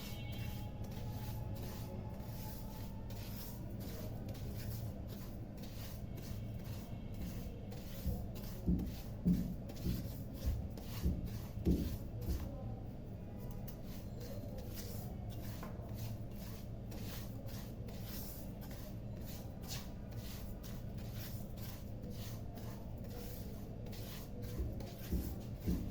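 A spoon stirring and scraping in a cooking pot, with a run of regular knocks about a third of the way in and again near the end, over a steady low hum.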